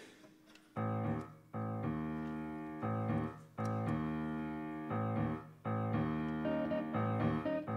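Grand piano playing a slow series of struck chords, each ringing and fading before the next, with uneven gaps between them. It starts about a second in, after a near-quiet moment.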